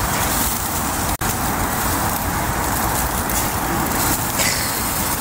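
Steady rush of road traffic noise, an even wash of passing cars with no distinct events. It briefly cuts out about a second in.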